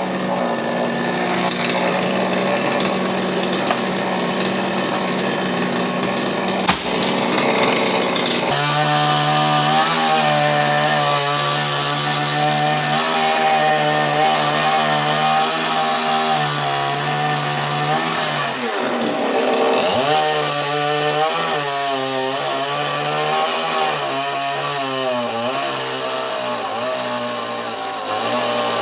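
Chainsaw running while cutting into a coconut palm trunk. Its engine note changes about eight seconds in, then dips and recovers several times under load.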